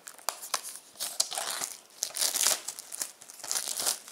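Plastic shrink wrap being torn and peeled off a Blu-ray case, crinkling in several bursts with sharp crackles.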